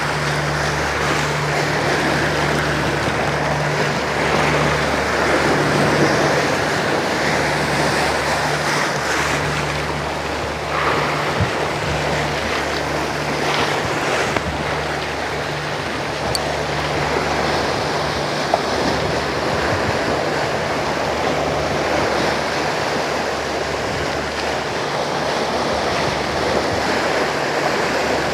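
Sea waves washing against a rocky shore, with wind on the microphone and a faint steady low hum underneath.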